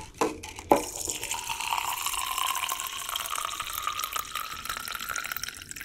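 Water running from a water-dispenser spigot into a plastic shaker bottle: a steady pouring stream whose pitch rises slowly as the bottle fills. Two short knocks come in the first second, before the flow starts.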